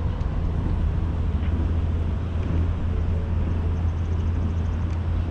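Outdoor ambience dominated by a steady low rumble, with a few faint high ticks about four seconds in.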